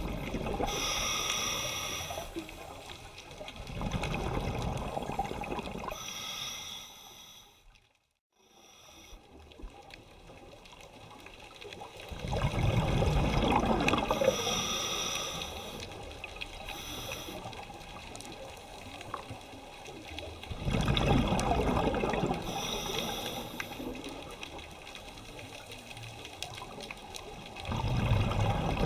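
Scuba regulator breathing recorded underwater: surges of exhaled bubbles rushing past, one every several seconds, with quieter stretches between breaths.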